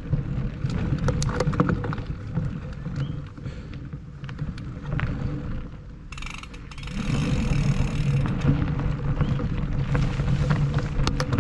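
Mountain bike ridden over hard dirt and loose gravel, heard from a camera mounted on the bike: a steady low rumble of wind and tyre noise, with the bike rattling and clicking sharply over stones, the clicks thickest near the end.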